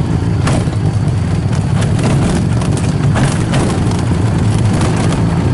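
Tuk-tuk engine running steadily with road noise as the tuk-tuk is driven along, heard from the passenger seat, with a few brief rattles.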